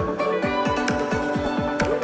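Background electronic music with a steady, fast kick-drum beat of about four thumps a second over sustained tones.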